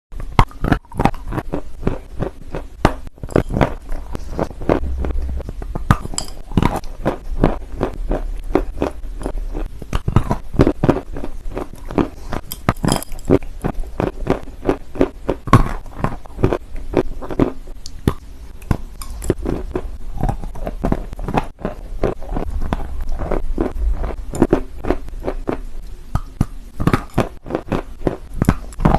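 Close-up chewing and biting of hard, dry red clay: rapid, irregular crunching and cracking, several a second, with a low rumble underneath.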